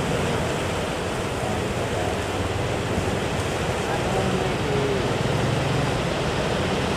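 Steady rushing noise of big surf breaking at a river mouth, with faint voices talking over it.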